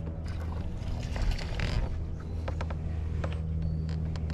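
Fishing reel being cranked while a jerkbait is worked on the rod, giving scattered clicks and creaks, over a steady low hum.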